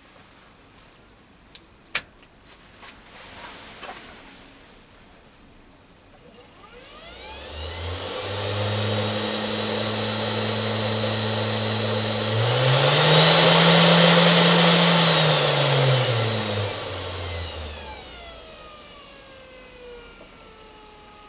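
Machifit 500W ER11 spindle motor run up on its speed control: a few clicks in the first seconds, then a rising whine that holds steady, climbs to its highest speed, and falls away slowly as the knob is turned back down.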